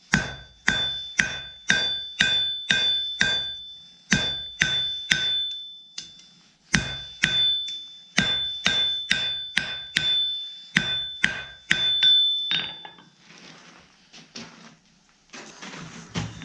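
Hand hammer striking hot steel on an anvil, about two blows a second in short runs, each blow leaving a bright metallic ring, as the stock is drawn out. The hammering stops about twelve seconds in, and only softer, noisier handling sounds follow.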